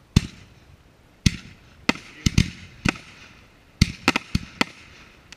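Aerial firework shells bursting overhead: about a dozen sharp bangs at uneven intervals, several coming in quick pairs, each followed by a short echo.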